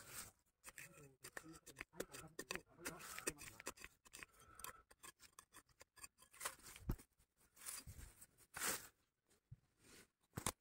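Faint, irregular scraping and crunching as a hand tool digs and scrapes into dry soil among dead leaves, in many short strokes.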